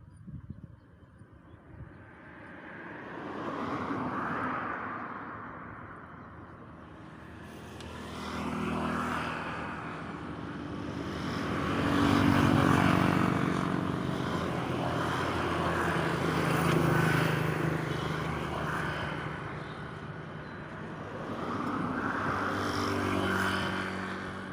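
Motor vehicles passing one after another, the sound of each swelling up and fading away, about four passes in all. The loudest and longest pass comes around the middle, with a clear engine note.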